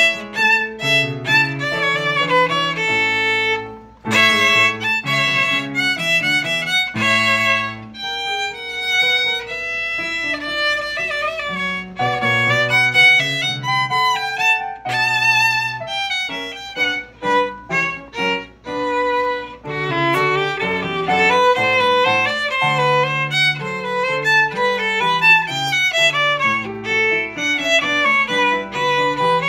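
Violin playing a gavotte in D major: a continuous line of bowed notes, with a brief break about four seconds in.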